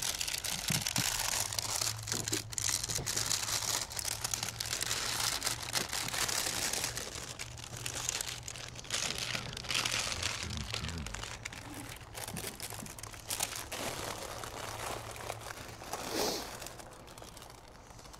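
Close crinkling and rustling right at the microphone, like handling noise or plastic being crumpled, starting abruptly and dying down near the end.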